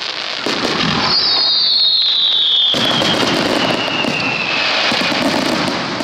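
Star mine fireworks going off: shells bursting with sharp bangs, the loudest about midway, over a dense crackle. About a second in, a firework whistle starts, its pitch falling steadily for some four seconds.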